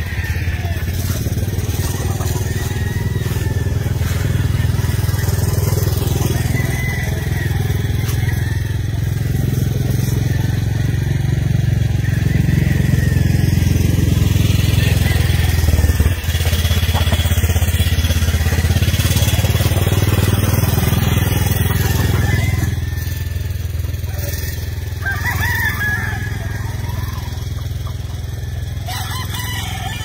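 A steady low rumble runs throughout, with roosters crowing at times over it.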